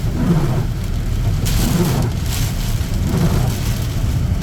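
Pickup truck driving through a storm, heard from inside the cab: steady engine and road rumble with rain on the body, the hiss of the rain swelling in bursts.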